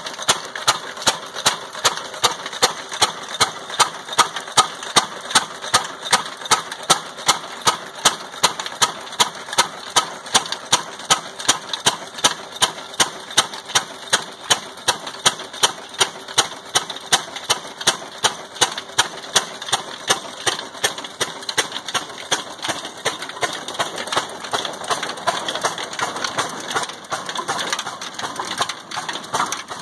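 Old black single-cylinder diesel engine of the Ruston type, running slowly under load with a regular beat of a little under two firing strokes a second while it drives a flour mill (chakki) through flat belts. In the last third the beats grow weaker above the steadier clatter of the belts and pulleys.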